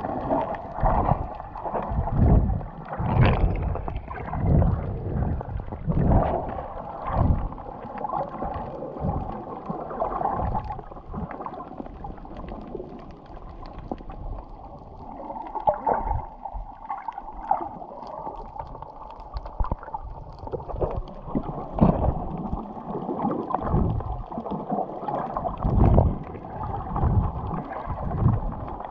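Muffled underwater water sound heard through a camera's waterproof housing: irregular gurgling and sloshing swells, every second or two, as the snorkeler swims along.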